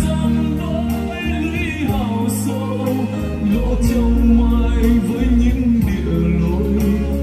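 A Vietnamese song with a singer and backing band, played back over hi-fi loudspeakers driven by an Altec Lansing power amplifier and heard in the room.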